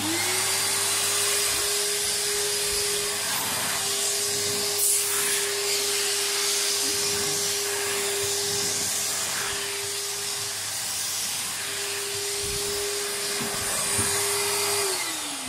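Numatic tub vacuum cleaner switched on, its motor quickly rising to speed and running with a steady whine and rush of air, then switched off near the end and winding down in falling pitch.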